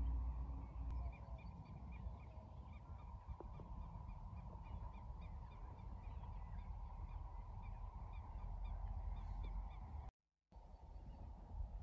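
Birds calling outdoors: a run of short, repeated high notes with goose-like honking, over a steady low rumble. The sound cuts out for a moment near the end.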